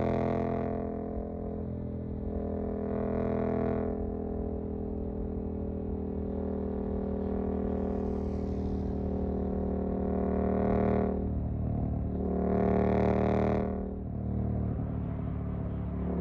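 Suzuki GSX-8S parallel-twin engine running through a Jeskap EVO aftermarket exhaust on the move at a fairly steady speed. The exhaust note swells several times as the throttle is opened and dips briefly twice in the second half.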